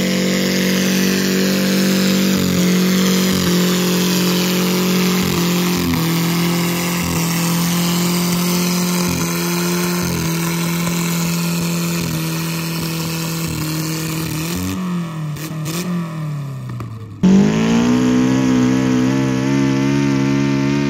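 Mini mod pulling tractor engine held at high revs while dragging a weight-transfer sled, its pitch dipping briefly every second or so, then falling off near the end of the pull. About 17 seconds in, it cuts sharply to another pulling tractor's engine, which revs up and then holds steady.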